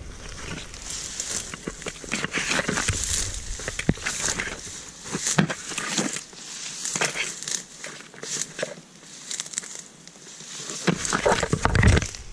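Tall weeds and nettles rustling and crackling as someone pushes through them on foot, trampling dry stems underfoot while leaves and stalks brush close past the microphone in a run of irregular swishes and snaps.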